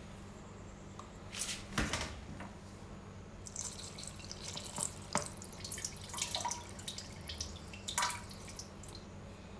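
Knit fabric being handled and unfolded on a wooden tabletop: soft rustling with scattered clicks and taps, and a few louder knocks about two seconds in and near the end, over a steady low hum.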